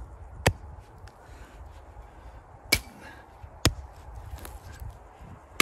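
A hand tool chopping at a rotten tree stump in the ground: four sharp knocks at uneven intervals, with fainter ones between.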